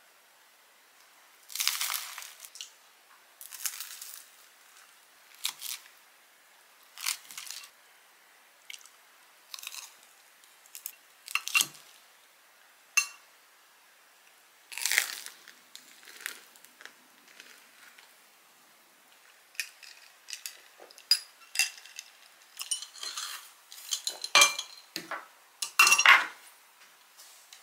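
Eating sounds: crunchy bites and chewing of a bagel sandwich and leafy salad, in separate short bursts every second or two. In the last few seconds, plates, cutlery and a glass clink and knock as they are gathered up.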